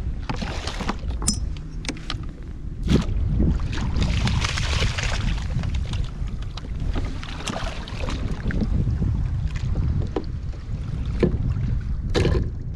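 Wind rumbling on the microphone and water sloshing beside a kayak. About four seconds in there is a hissing splash as a black sea bass is scooped into the landing net, and a few sharp knocks.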